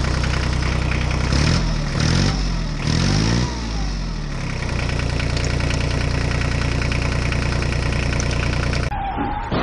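Tractor engine sound effect: the revs rise and fall a few times in the first seconds, then the engine runs steadily, and the sound cuts off abruptly near the end.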